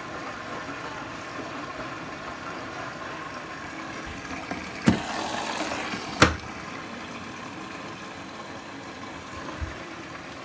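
Bosch front-loading washing machine filling for its first rinse: a steady rush and hiss of water running in through the detergent drawer. About five seconds in, the drawer is clicked open and the water hiss gets louder. Just over a second later it is pushed shut with a second click.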